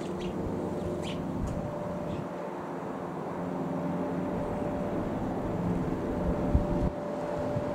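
Jabiru UL-450 light aircraft's engine and propeller droning steadily overhead, with wind buffeting the microphone and a thump about six and a half seconds in.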